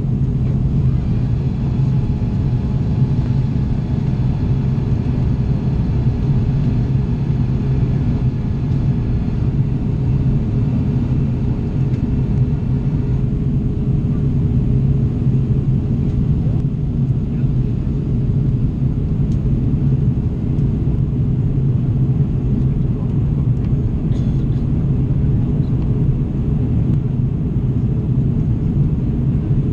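Steady low roar of an Airbus A330's jet engines and rushing air, heard from inside the passenger cabin during the climb after take-off. A few faint high tones ride on top and fade out about halfway through.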